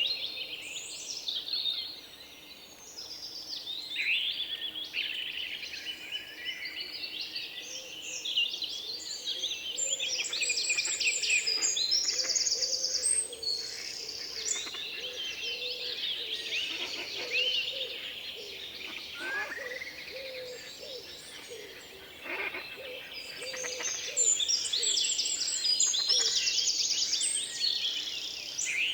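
Many birds chirping and calling at once, a dense chorus of short overlapping chirps and trills.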